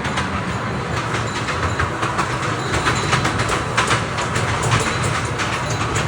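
Small tourist train running along its track: a steady low rumble with quick, irregular clicking and rattling from the wheels and cars.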